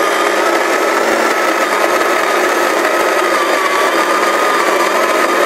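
Philips Saeco electric burr grinder running steadily at its finest grind setting, grinding coffee beans: a steady motor whine over the even hiss of the grinding.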